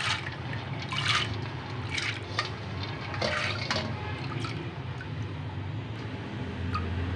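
Washed chana dal (split chickpeas) being poured and scraped by hand from a steel bowl into a steel saucepan of water, splashing in irregularly, most thickly over the first four seconds or so. A steady low hum sits underneath.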